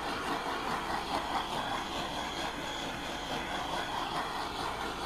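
Handheld blowtorch flame burning with a steady hiss, passed back and forth over fresh epoxy resin to pop the air bubbles.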